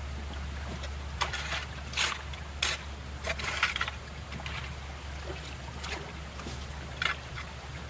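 A handful of short splashes and rustles of wet vegetation and debris being pulled out of shallow creek water, most in the first four seconds and one more near the end, over a steady low rumble.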